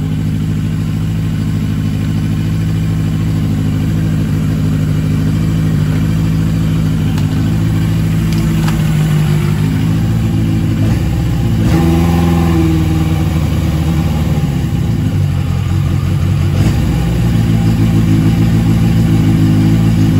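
Yamaha XJ750's air-cooled inline-four engine running steadily, its note shifting briefly about halfway through before settling again. It is running smoothly and humming, with carburetors cleaned by Seafoam after it would only run on starter fluid.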